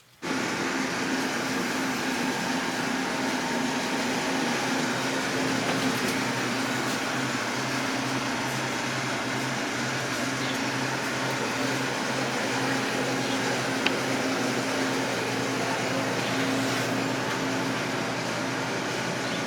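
Steady mechanical whirring and rushing noise with a constant hum, cutting in suddenly and holding level, with a low tone pulsing at an even rate through the middle.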